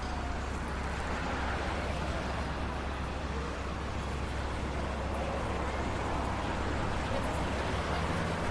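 Steady street traffic noise with a low engine rumble.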